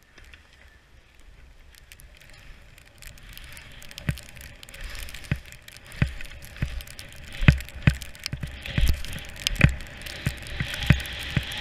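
Skis sliding and turning through snow, a hiss that builds after a quiet start, with irregular sharp knocks and clatters in the second half. Wind rumbles on the helmet camera's microphone as speed picks up.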